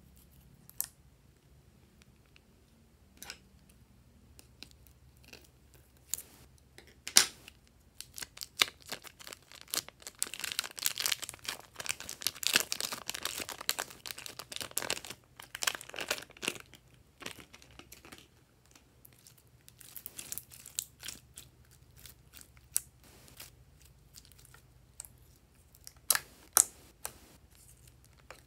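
Plastic piping bags crinkling as glossy slime is squeezed out of them, with sticky crackling of the slime, thickest in the middle of the stretch, and a few sharp clicks.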